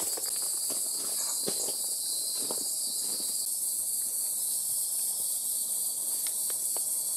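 Steady chorus of night insects in tropical forest: a continuous high-pitched shrill that holds level throughout, with a few faint soft ticks and rustles.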